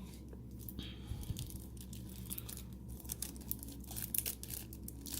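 Plastic wrapping on a pack of trading cards being torn open and crinkled by hand, a run of short, quick crackles.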